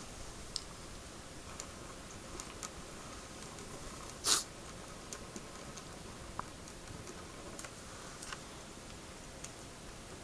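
Quiet room with scattered faint, sharp clicks and one brief rustling hiss about four seconds in.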